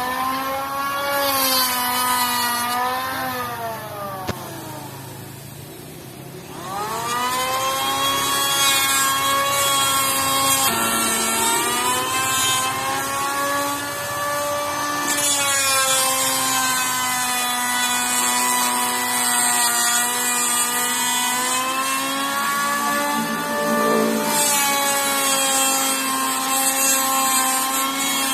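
Makita electric hand planer running with a steady motor whine. About three seconds in it winds down, and about six and a half seconds in it spins back up, rising in pitch. There are stretches of higher hiss as it cuts the wood.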